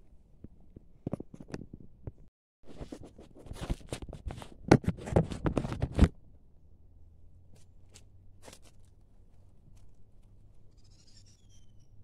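Close crunching and scraping handling noise, a dense run of crackles and clicks for a few seconds after a brief dropout, then a few scattered clicks.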